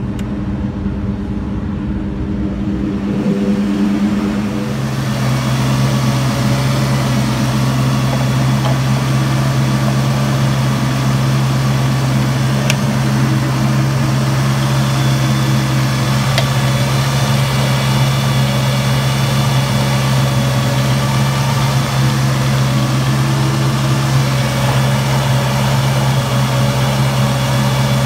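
Ford Mustang 32-valve V8 idling steadily as it warms up with the heater on full, so that trapped air can be purged from a freshly refilled cooling system. About four to five seconds in the sound becomes louder and fuller.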